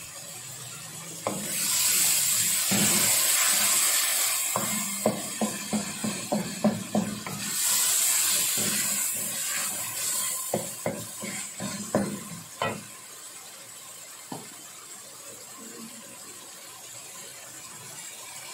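Onion-tomato masala with whole cumin seeds sizzling in a metal pan while a wooden spoon stirs it. There is a loud frying hiss starting about two seconds in and again around eight seconds, and between them quick runs of the spoon knocking against the pan. After about thirteen seconds it settles to a low sizzle.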